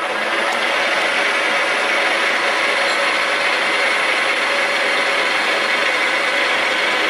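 Milling machine running, its spindle turning a 3-flute face mill with triangular carbide inserts. It reaches a steady, loud whir within the first second and holds it.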